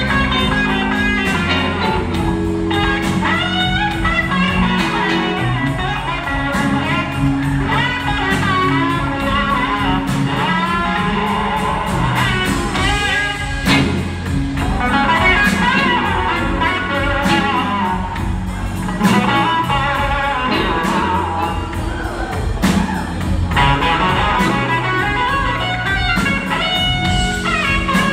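Live blues band playing a slow blues instrumental: an electric slide guitar leads with gliding notes over bass and drums.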